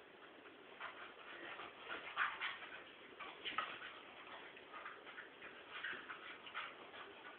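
English bull terrier whining in short bursts during rough play, with claws clicking on a tile floor.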